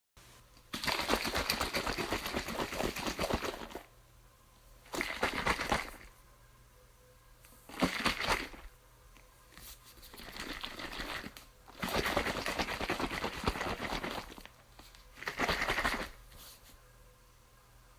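Water bottle shaken hard in six rounds of one to three seconds each with short pauses between, the water sloshing inside.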